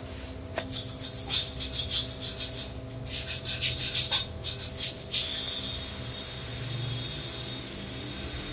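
A brush scrubbing the wet, rusty surface of a ribbed metal lamp housing in quick back-and-forth strokes, about five a second. It comes in two runs with a short break between them, and the scrubbing stops about five seconds in.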